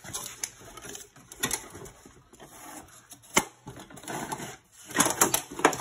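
Metal sluice boxes and an external pack frame clattering and knocking as the gear is pulled off the frame and handled. There is a sharp knock a little after three seconds and a burst of rattling near the end.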